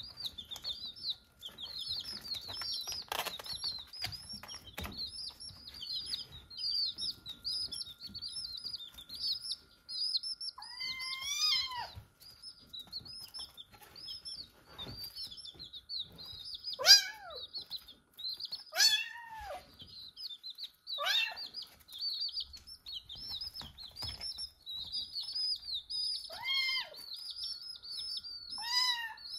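Baby chicks peeping without pause in quick, high chirps, while a kitten meows about six times in the second part, short rising-and-falling meows louder than the peeping.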